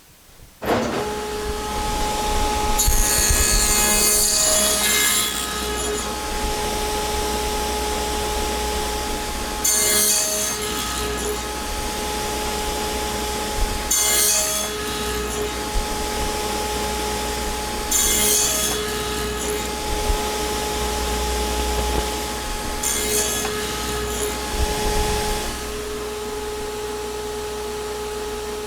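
Table saw fitted with a dado blade starting up about a second in and running steadily, cutting into a pair of 2x4s on a crosscut sled in five separate passes, each heard as a burst of harsh, higher-pitched cutting noise over the motor's hum.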